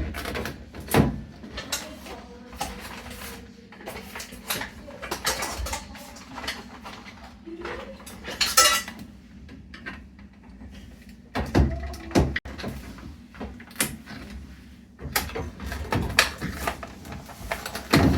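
Irregular clicks, knocks and clatter of plastic and metal parts being handled while taking apart a washing machine's control board assembly.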